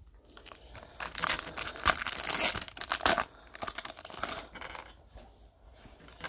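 Trading card pack wrapper being torn open and crinkled by hand, a dense crackling rustle for a few seconds that thins to lighter rustling near the end.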